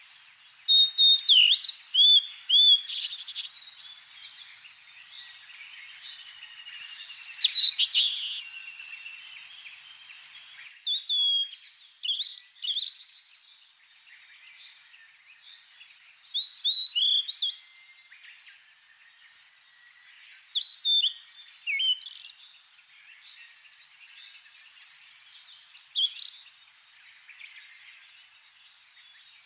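Forest birdsong: several small birds chirping and whistling in bursts, with a quick trill of evenly repeated notes near the end.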